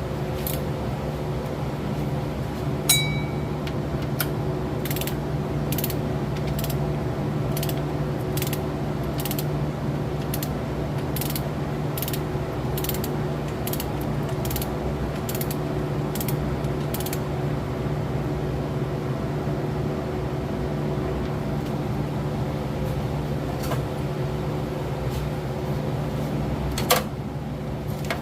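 Ratchet wrench clicking in a regular run of short strokes, about two a second, while bolts are worked on a water pump and bracket. There is a metallic clink of a tool near the start and another knock near the end, over a steady background hum.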